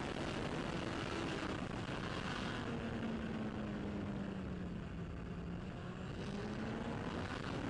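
Racing motorcycle engine heard onboard under hard braking into a slow corner: the engine note falls as the bike slows, then rises again near the end as it accelerates out. Wind rush over the onboard microphone is strong at speed and fades as the bike slows.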